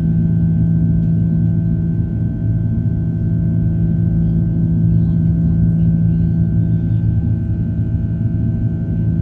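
Airbus A330's twin turbofan engines at take-off/climb power heard from inside the cabin: a steady drone with a strong low hum and a fainter high whine.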